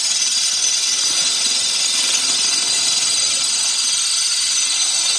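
Drill running at low speed with a multi-purpose masonry bit grinding through porcelain tile: a steady, high-pitched grinding hiss.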